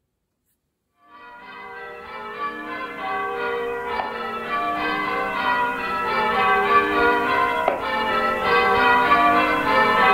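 Church bells change ringing, with many bells struck one after another in quick succession. They fade in about a second in and grow steadily louder.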